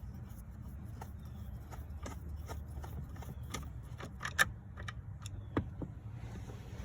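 Scattered light clicks and metallic clinks of hand tools being handled, with the loudest knocks a little past the middle, over a steady low hum.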